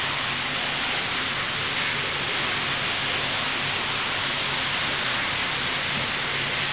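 Steady rush of running water with a faint low hum underneath.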